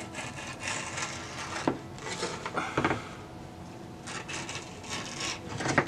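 Grip tape being rubbed and scraped along the edges of a wooden fingerboard deck, a scratchy rubbing with a couple of sharp taps about two and three seconds in.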